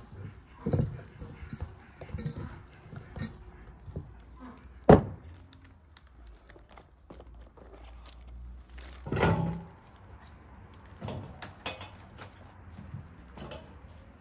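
Food-preparation handling sounds: scattered knocks and thumps as raw lamb is handled in an enamel bowl and peppers and aubergines are picked up and gathered into a bowl. The sharpest knock comes about five seconds in, and a heavier thump about nine seconds in.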